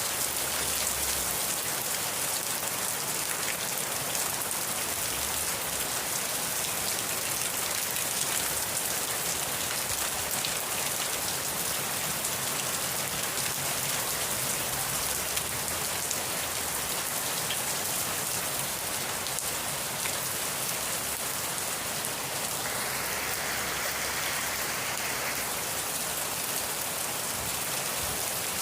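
Steady rain falling and pattering on surfaces, an even hiss, with a brief swell in the hiss about three-quarters of the way through.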